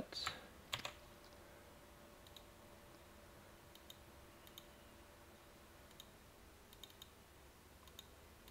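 Faint, scattered clicks from a computer mouse and keyboard: a few sharper clicks in the first second, then soft clicks, often in pairs, every second or so.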